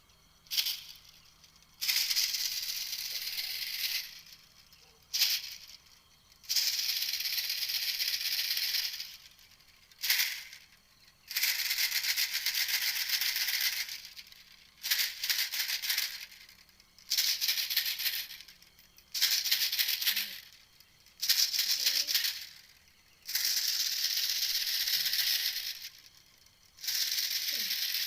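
Animal call used as a hunting lure: a dry, rasping rattle in bursts about two to three seconds long, repeating every three to four seconds, with short single clicks between the bursts.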